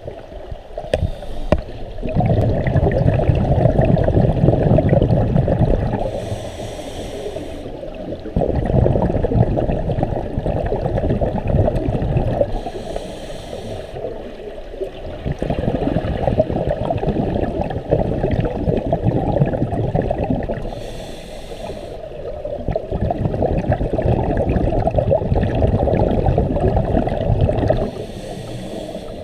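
Scuba regulator breathing heard underwater: each exhalation a long bubbling rush lasting about four seconds, broken by a short hissing inhalation, about four breaths in all.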